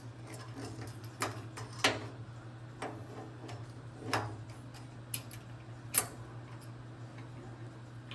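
Scattered sharp clicks and taps of steel clamps and a square being handled and set on a steel welding plate, about five in all with the loudest about six seconds in, over a steady low electrical hum.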